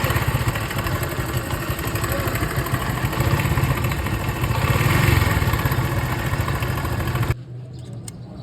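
Honda motorcycle engine running at idle with a worn timing chain that makes noise, swelling slightly about halfway through and cutting off suddenly near the end.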